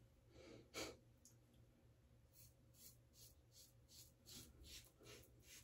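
Faint scraping of a 1978 Gillette Black Beauty adjustable double-edge safety razor, set on five with a Gillette Nacet blade, cutting through heavy lathered stubble. A quick run of short strokes, about four a second, starts about two seconds in.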